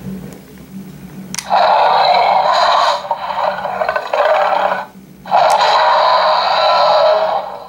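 Mattel Baryonyx 'Limbo' dinosaur figure playing its electronic roar sound effect through its small built-in speaker, set off by the switch on its back that opens its jaws. Two loud, harsh roars of two to three seconds each, each starting with a sharp click.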